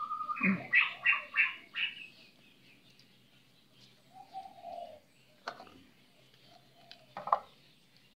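Birds chirping: a quick run of about six short chirps in the first two seconds, then a single lower, falling call about four seconds in. A few faint sharp clicks come later.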